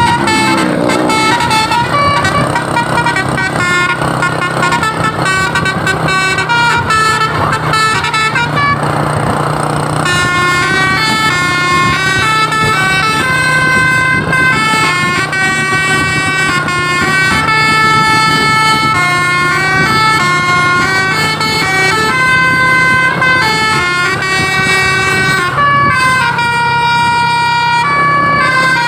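Basuri telolet musical horn on a bus playing a long, unbroken run of quick tunes, the notes stepping up and down, over a steady engine drone.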